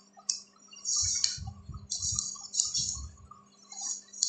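Irregular clicks and taps of a computer mouse and keyboard, a handful of sharp clicks with short clattery clusters, over a faint steady low hum.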